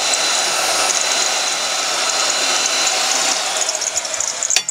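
A power tool's motor runs steadily with a whirring noise, then cuts off suddenly with a click near the end.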